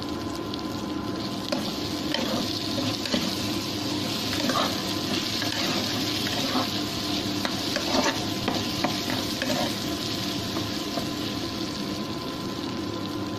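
Potato slices frying in oil with onion and tomato in a pressure cooker pot: a steady sizzle, with short clinks and scrapes of a spoon stirring the pot every second or two.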